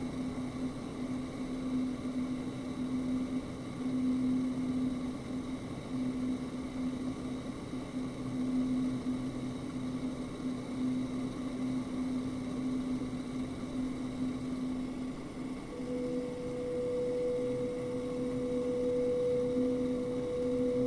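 Ambient electronic drone: a low steady hum over a faint hiss-like wash, joined about three-quarters of the way through by a higher sustained tone.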